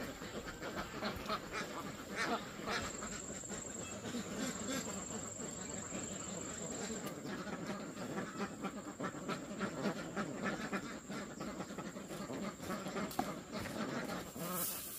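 A flock of white domestic ducks quacking and chattering continuously, with a steady high thin tone running alongside.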